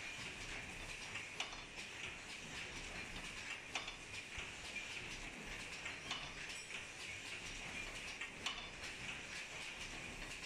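Double-station paper souffle cup forming machine running: a steady mechanical whirr with a sharp knock about every two and a half seconds as it cycles through its stroke.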